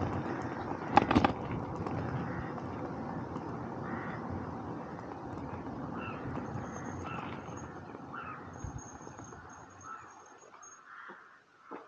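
Birds calling again and again, about one call a second, over a steady rushing noise that slowly fades away. Two sharp clicks come about a second in.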